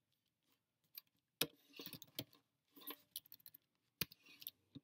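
Faint keystrokes on a computer keyboard: irregular clicks, with a quick run of taps about three seconds in.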